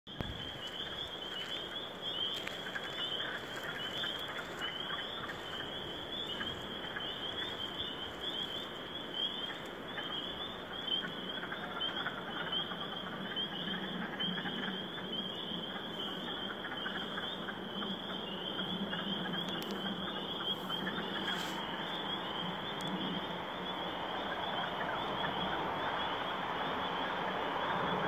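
A dense chorus of frogs calling: a steady mass of many overlapping high-pitched chirps, with a lower wash of calls swelling over the last few seconds.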